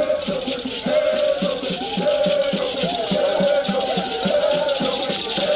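Singing voices repeating a short phrase over rattles or shakers keeping a quick, steady beat, with regular low strokes under it.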